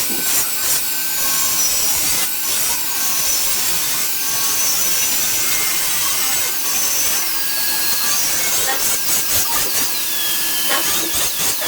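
A metalworking tool rasping against stainless steel sanitary pipe, with shifting high whistling tones. About nine seconds in it turns into regular back-and-forth strokes, about four a second.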